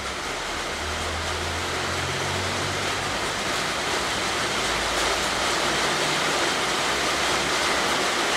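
Steady rushing background noise that grows slightly louder, with a low hum underneath.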